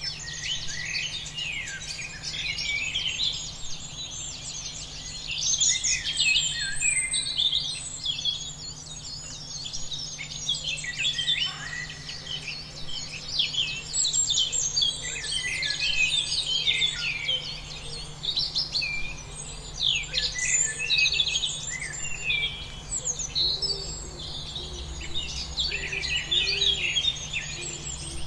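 A dense chorus of small birds chirping and singing without a break, many short high calls and trills overlapping.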